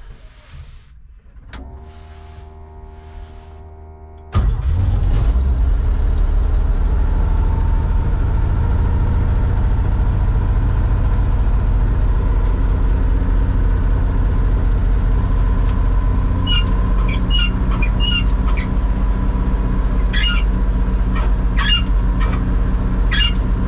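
The 1955 Chevrolet 6100 truck's engine, heard from inside the cab, starts abruptly about four seconds in after a quieter steady hum, then runs steadily. Several short high squeaks come through in the second half.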